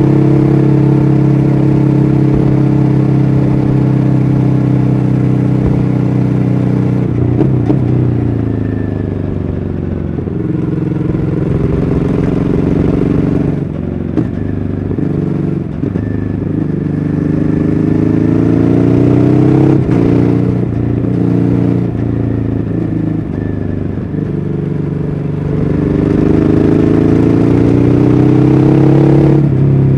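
Ducati Hyperstrada's 821 cc L-twin engine heard from on board while riding, running at a steady pitch for several seconds. It then repeatedly drops and climbs in pitch as the bike slows and accelerates, and rises steadily near the end under acceleration.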